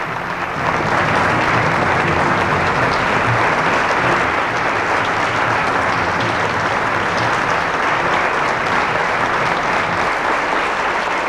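Theatre audience applauding: dense, steady clapping from a full house.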